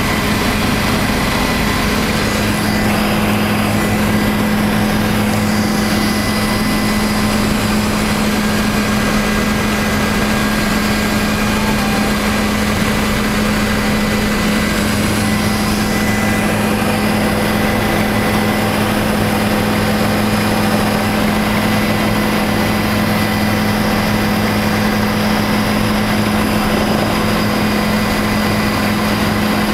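Helicopter in flight heard from inside the passenger cabin: a steady engine and rotor drone, with a strong low hum and several fainter steady whining tones above it.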